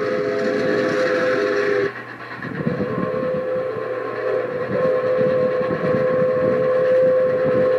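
Toy train whistle blowing long held notes, breaking off about two seconds in and then sounding again, over the clatter of the train running on the track.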